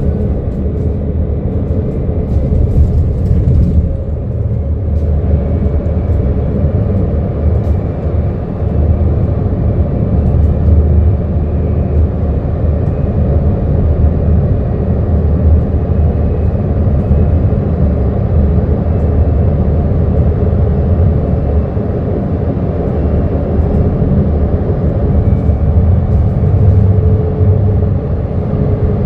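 Solaris Urbino 15LE electric bus driving, its TSA TMF 35-44-4 traction motor giving a faint whine over a steady low rumble; the whine's pitch falls near the start and rises again near the end as speed changes.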